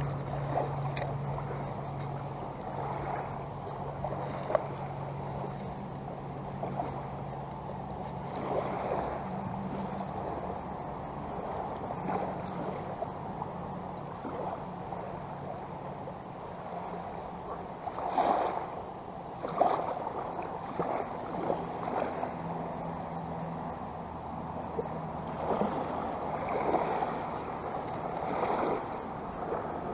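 Shallow seawater lapping and swishing at the shoreline, with short louder surges of splashing now and then. A low steady hum runs underneath.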